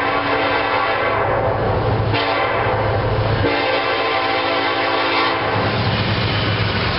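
Norfolk Southern SD70ACe diesel locomotive's air horn sounding for a grade crossing in long blasts with short breaks. Near the end the passing locomotive's engine and wheels take over.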